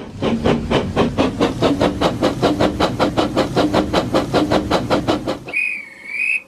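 Steam locomotive chuffing at a steady rate of about five puffs a second, then a short wavering steam whistle near the end.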